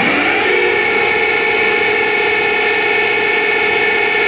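Okuma Crown 762S-BB CNC lathe running, its spindle finishing a run-up about half a second in and then holding speed with a steady, pitched whine from the motor and drive.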